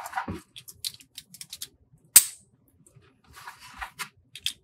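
Hellscythe Beyblade X top's plastic and metal parts (layer, ratchet and driver) handled and clicked together during assembly: light rattling clicks, one sharp snap about two seconds in, then a short rustle and a few more small clicks.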